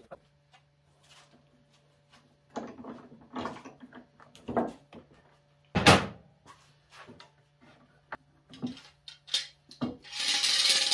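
Irregular knocks and clatter of metal pipe clamps and wood being handled on a workbench, with one loud knock about six seconds in and a scraping rush near the end.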